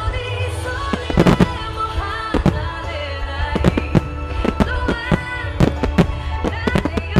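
Starmine fireworks display: a rapid volley of shells and ground-level mines firing and bursting, many sharp bangs in quick succession, the densest run about a second in. Music with held notes plays beneath the bangs.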